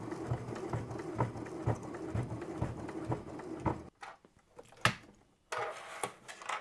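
Elna Excellence 680+ computerized sewing machine stitching slowly and evenly, about two stitches a second, through four layers of glitter fabric with lining, fusible web and a ribbon. The stitching stops about four seconds in, followed by a single sharp click and a brief run of the machine near the end.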